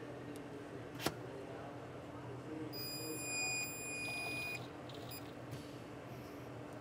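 Car-O-Liner CTR9 resistance spot welder making a spot weld through a three-plate steel stack: a sharp click about a second in, then a steady high-pitched tone for just under two seconds while the weld runs.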